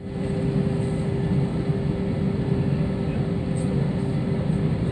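Aircraft cabin noise while taxiing: the engines and cabin air give a steady low hum with a faint held tone running through it, heard from inside the cabin.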